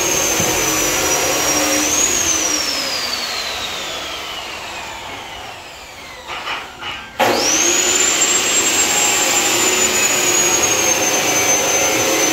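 An electric power tool's motor whines at full speed, then is released and spins down in falling pitch over about four seconds. After a few knocks it starts again abruptly, its whine rising fast back to full speed and holding steady.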